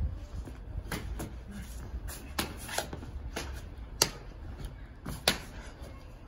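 Sharp, irregular snaps and scuffs of a martial artist moving through a form: the loose uniform cracking with the strikes and shoes scraping on terracotta tiles. About seven snaps in all, the loudest around four and five seconds in.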